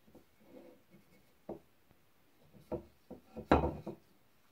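Walnut axe handle being turned in the hand and set against a wooden block and workbench: soft rubbing, then a few light wooden knocks, the loudest cluster about three and a half seconds in.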